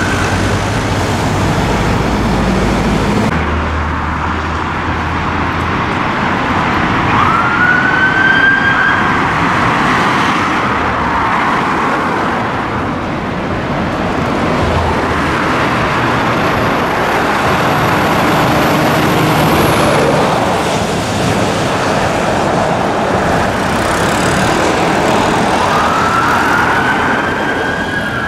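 Siren of a London Fire Brigade Scania P410 turntable ladder responding on blue lights, sounding in sweeping rising-and-falling tones that come through most clearly about a quarter of the way in and again near the end, over steady heavy road-traffic and engine noise.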